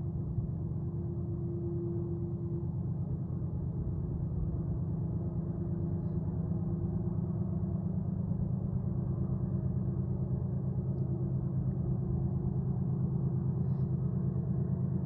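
GE Evolution-series diesel locomotives working hard under a loaded coal train on a steep upgrade, heard from a distance: a steady low engine drone that slowly grows louder.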